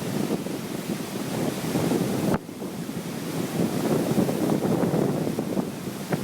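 Gusty wind, around 70 km/h, buffeting the microphone over lake waves breaking on the shore. The noise surges and eases, drops off suddenly about two and a half seconds in, then builds again.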